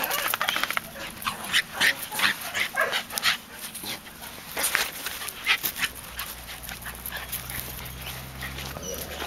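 Small dog yipping and whining, with many short sharp calls in the first five or six seconds and fewer after.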